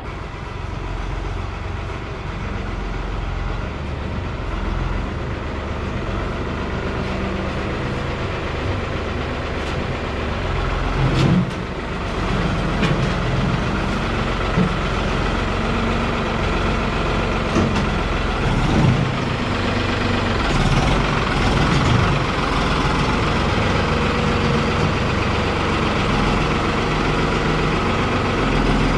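Engine of the loader used to scoop manure, running steadily, with a few short knocks and clunks partway through.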